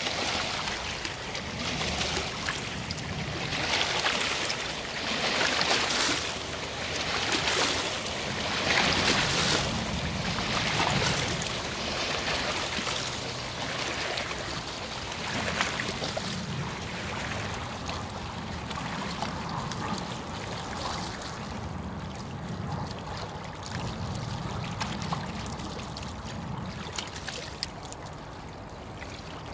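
Small river waves lapping and splashing at the water's edge, in washes every second or two, with a low steady rumble underneath. The splashing is livelier in the first half and softer in the second.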